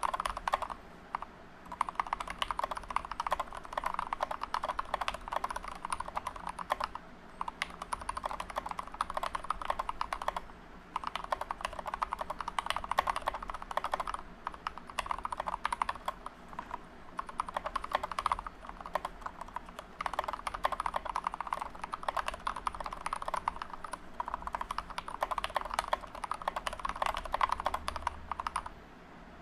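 Fast, continuous typing on a GK61 mechanical keyboard with lubed Gateron Milky Yellow linear switches, an aluminium plate, no case foam and SA-profile PBT keycaps. The keystrokes run as a dense clatter with a few brief pauses and stop shortly before the end.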